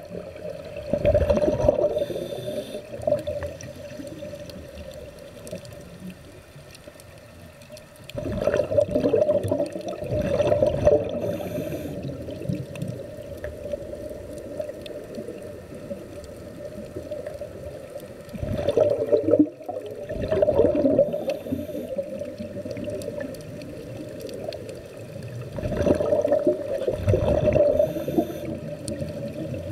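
Snuba diver breathing through a regulator underwater: exhaled bubbles burst out in four gurgling rushes of two to three seconds each, about every eight seconds, with a short hiss after each and a steady hum underneath.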